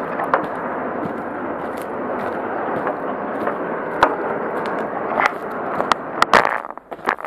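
A bicycle riding along, heard from a camera on its handlebar: a steady rush of wind and rolling noise, with a few sharp knocks and rattles from the bike. The loudest knocks come about six seconds in, just before the rolling noise stops.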